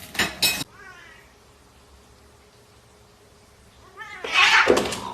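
Cat meowing: a short call right at the start, then a longer, louder one about four seconds in.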